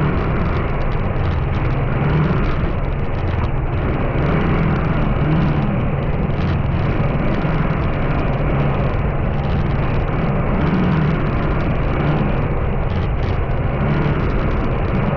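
A vehicle driving on the road: steady engine hum with a low drone, under continuous road and wind noise.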